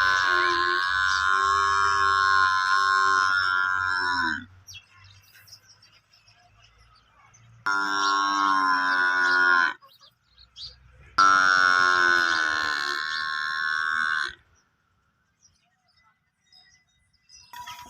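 Buffalo calf calling three times: long, drawn-out bawls, the first already under way and ending about four seconds in, the other two a few seconds apart, with quiet between them.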